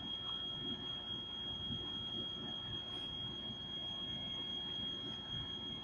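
A steady high-pitched electronic whine over faint background hiss.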